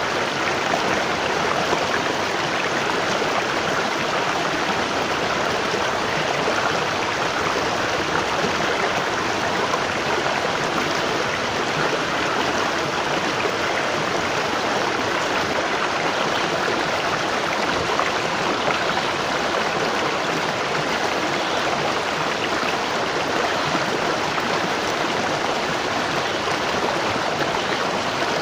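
A waterfall's steady rush of falling, splashing water, even in level with no breaks or separate events.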